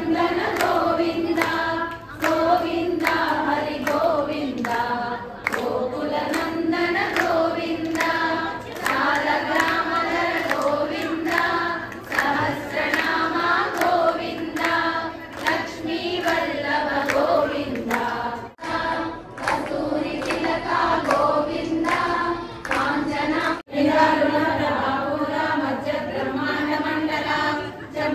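A group of women singing a devotional song together in unison, keeping time with rhythmic hand claps.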